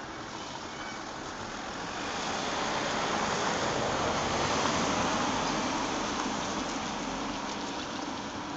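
A vehicle passing by on a road: tyre and engine noise swelling to a peak midway, then fading away.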